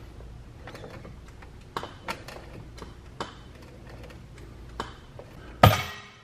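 Hand-operated hydraulic ram pump being worked, its handle strokes making separate sharp clicks, a few seconds apart, as a chained pullback ram draws tension on a cracked car frame. Near the end comes a loud sharp bang with a short ring as the pulling setup breaks under load.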